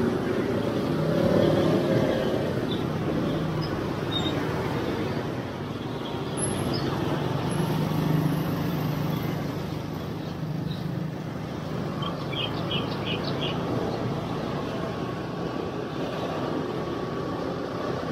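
Motorcycle engine running at riding speed, with road traffic noise around it.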